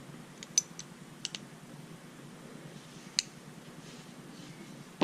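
Small sharp metal clicks as the little wrench tool is handled and fitted into a Wenger Snowboard Swiss Army knife: several close together in the first second and a half, one more about three seconds in.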